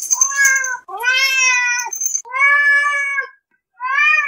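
Domestic cat meowing four times in a row, each meow under a second long, the last one shorter. A high, bright shimmering tone runs over the first meow.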